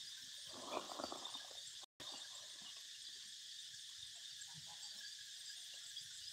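Steady high-pitched chorus of insects. About half a second in there is a brief, louder rustling scrape lasting about a second, and the sound cuts out for a split second at about two seconds.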